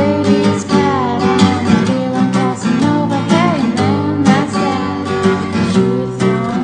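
Acoustic guitar strummed in a steady rhythm, playing a song, with sliding melody notes over the strums.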